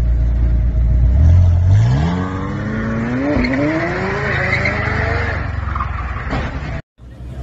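A McLaren 720S's engine goes from a low idle to hard acceleration, its note rising steadily with a brief dip at a gear change about three seconds in. Tyres squeal as the car loses control, and a short crunch of the car hitting parked cars comes near the end before the sound cuts off suddenly.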